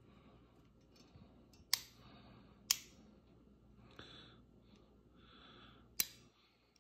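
Three sharp clicks of small hand tools and crimp parts being picked up and handled on a work mat, about a second apart at first and again near the end, with two soft hisses between.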